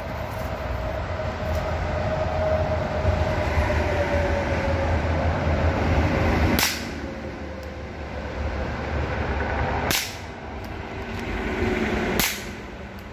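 Three shots from a Röhm RG20 revolver firing .22 Short rounds: sharp cracks a little past halfway, then about three and a half and two seconds later. A steady low rumble with a faint, slowly falling tone runs under the first half and stops at the first shot.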